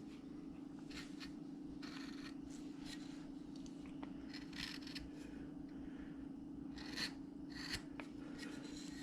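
Hand-held carving V-tool cutting short, scraping strokes into wood, outlining a line, with a steady low hum underneath.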